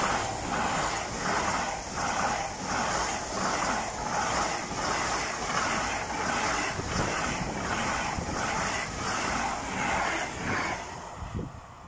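Eurostar high-speed train passing at speed, its wheels beating in a steady rhythm of about two a second under a steady rushing hiss. The sound stops near the end as the last car goes by.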